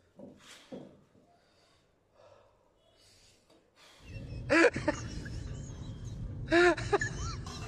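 Near quiet with a few soft breaths at first. About four seconds in, a steady low rumble starts, and twice a loud voice lets out a short cry that swoops up and down in pitch.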